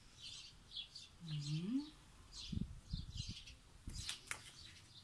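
Small birds chirping over and over, a few short chirps a second. About a second and a half in there is a short low rising hum, and near the middle a few low thumps as magazines are handled.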